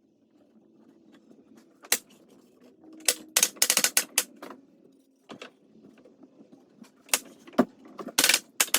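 18-gauge narrow-crown stapler driving 1-inch staples into cedar fence pickets: sharp shots, some single and some in quick runs, over a dozen in all.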